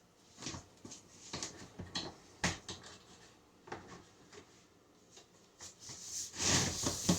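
Handling noise: a series of light clicks and knocks, then a louder scraping rustle lasting about a second near the end.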